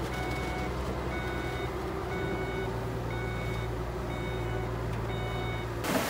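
Reversing alarm of a heavy construction machine beeping six times, about once a second with each beep lasting about half a second, over the steady hum of its diesel engine. Both stop abruptly just before the end.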